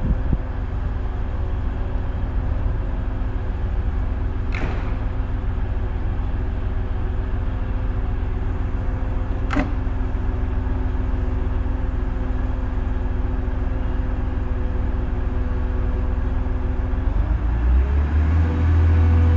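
Class 185 diesel multiple unit's Cummins diesel engines idling steadily at the platform, a low rumble with a steady hum. Two short sharp knocks come about five and ten seconds in. Near the end the engine note changes and grows louder.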